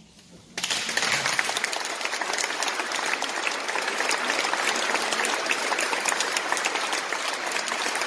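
Audience applauding, breaking out suddenly about half a second in and going on as dense, steady clapping.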